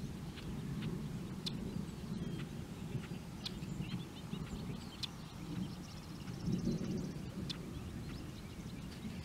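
Distant thunder rumbling continuously from a thunderstorm, swelling about two thirds of the way through. Birds chirp now and then above it, with a short rapid trill near the middle.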